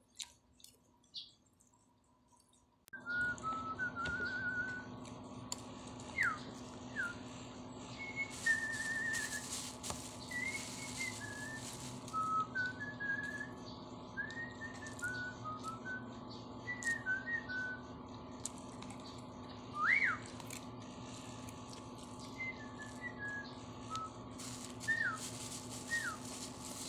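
High whistled chirps, short warbles and quick rising and falling notes, scattered and irregular, over a steady low hum; both start abruptly about three seconds in, after near quiet.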